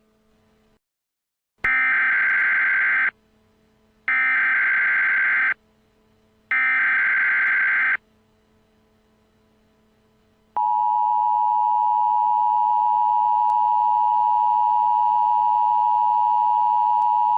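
Emergency Alert System tones: three short warbling data bursts of the SAME header, about a second and a half each with gaps between, then from about ten seconds in the steady two-tone attention signal.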